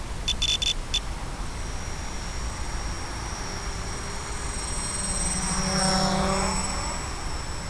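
Quadcopter's electric motors and propellers buzzing with a high whine. The buzz swells to its loudest about six seconds in as the craft flies low past, then fades. Near the start there is a quick run of short beeps.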